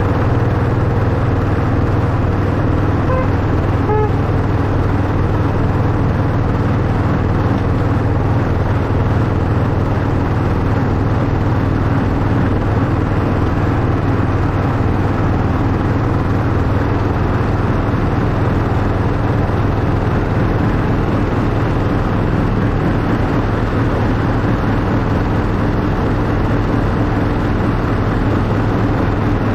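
Miniature ride-on locomotive, a replica Class 91, running steadily along the track: an even low drone and rumble that holds steady throughout, with two short high squeaks about three and four seconds in.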